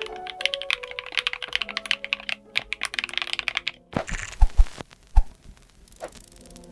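Mechanical keyboard with Gateron Smoothie Chocolate full-POM tactile switches, in an aluminum Tofu60 case with an FR4 plate, being typed on fast: a dense run of keystrokes over background music. About four seconds in the music cuts off, and a few slower, separate keystrokes follow on their own.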